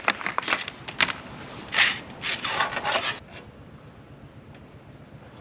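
Curved scissors cutting thin copper sheet: a quick run of sharp snips in the first second, then two longer scraping, rustling cuts as the metal sheet is worked, stopping about three seconds in.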